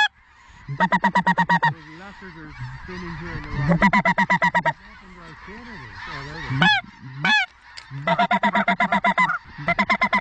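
Goose honking in rapid strings of about ten honks a second, coming in several bursts, with a few single drawn-out honks near the middle and softer goose chatter between the bursts.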